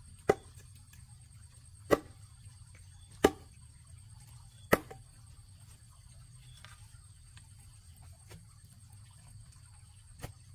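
Hard blows of a tool striking wood: four sharp strikes about a second and a half apart in the first five seconds, then a couple of lighter knocks near the end.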